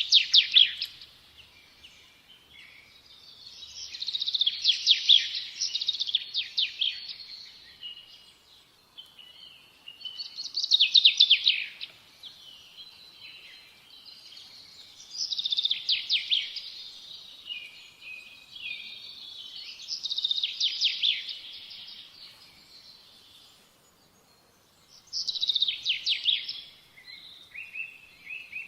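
A songbird singing in repeated high phrases about every five seconds, each phrase a quick run of notes.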